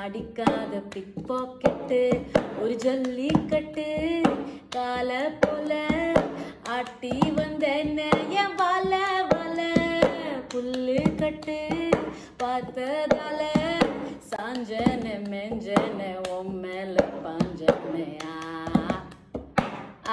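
A woman singing a melody while keeping time with sharp hand claps and taps.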